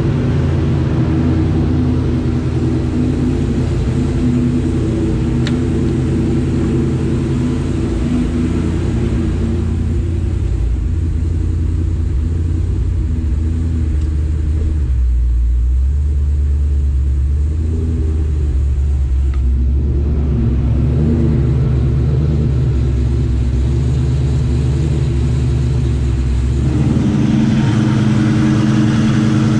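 Supercharged V8 of a 2003 Ford Mustang Mach 1 running steadily, with no revving. For several seconds in the middle the sound turns deeper and duller, then fuller again near the end.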